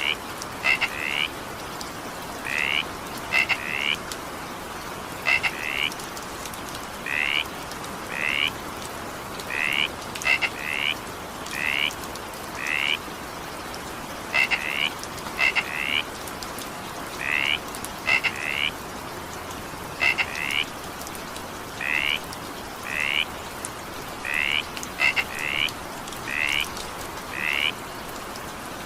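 Frogs calling in short, repeated croaks, often in quick pairs, about once a second, over the steady hiss of falling rain.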